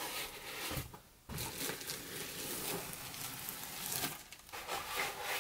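Packaging being handled: plastic wrap crinkling and foam packing blocks rubbing and squeaking as a boxed resin 3D printer and its plastic-wrapped cover are lifted out of the foam, with a short pause about a second in.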